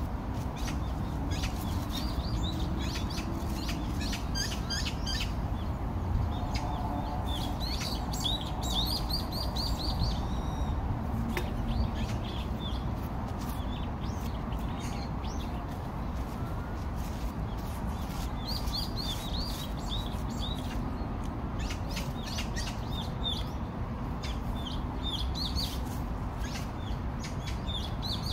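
Small birds chirping: many short, high calls in quick runs scattered throughout, over a steady low background noise.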